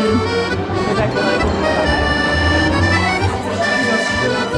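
Background music with held melody notes over a steady bass line.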